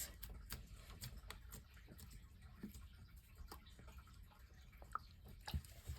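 Faint sticky clicks and squelches of glossy slime being kneaded by hand, with two sharper clicks near the end.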